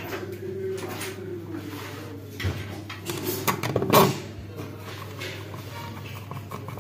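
Plastic clicks and knocks as a D-Link network I/O box faceplate is handled on its wall box, with a screwdriver working the faceplate's fixing screw; the loudest knock comes about four seconds in.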